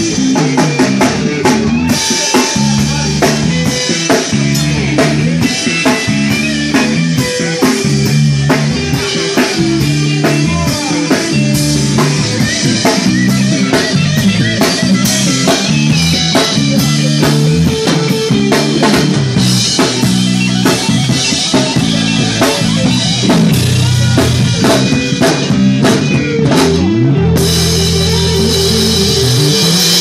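Live band music: a drum kit with busy snare and bass-drum hits under electric guitar. A few seconds before the end the drums stop and an electric guitar carries on with held notes.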